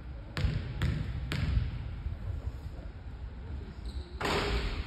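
Basketball being dribbled on a hardwood gym floor: three bounces about half a second apart in the first second and a half. A short burst of broad noise follows near the end.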